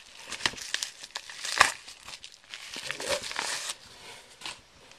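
Bubble wrap being handled and pulled off a small package: irregular crinkling and rustling, with a sharp crackle about one and a half seconds in.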